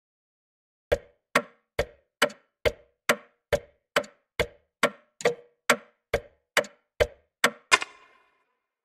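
Sharp, evenly spaced ticks, a little over two a second, starting about a second in. Near the end a louder strike rings on briefly.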